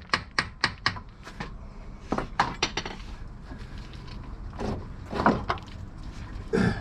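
Hammer tapping a steel part of the front suspension to knock it free. It starts with a quick run of light taps, about four a second, then irregular metal clanks and a few heavier single knocks.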